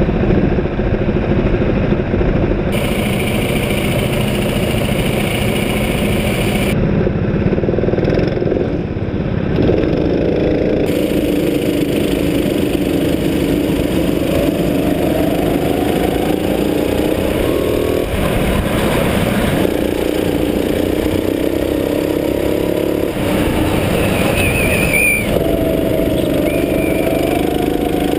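Onboard sound of Sodi rental go-karts racing: the kart's engine revving up and easing off through the corners, its pitch rising and falling, with other karts running close by. The engine sound changes abruptly several times as the recording switches from one kart's onboard camera to another's.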